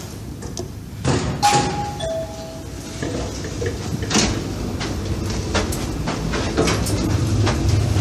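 Toshiba traction lift arriving: a two-note chime, high then lower, about a second and a half in, then the car's sliding doors running with clicks and knocks. A low hum builds near the end as the car starts to travel.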